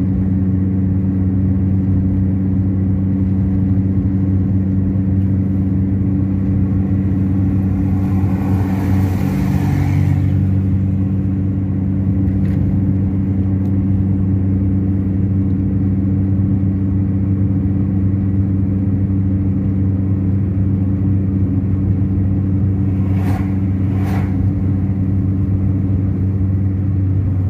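A car cruising at steady speed on a highway: a constant engine hum with road noise. About nine seconds in there is a brief rushing whoosh, and near the end two short clicks.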